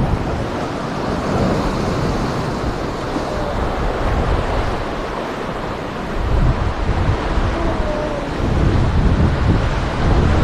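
Sea surf breaking and washing against a rocky shoreline, with wind buffeting the microphone; the low rumble swells about six seconds in and again near the end.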